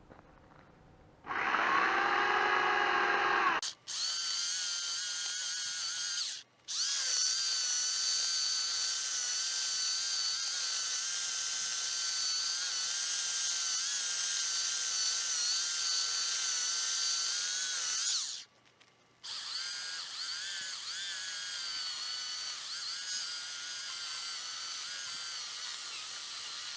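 Electric chainsaw cutting through a big tree trunk, running in long bursts with a high steady whine. It stops briefly twice and restarts.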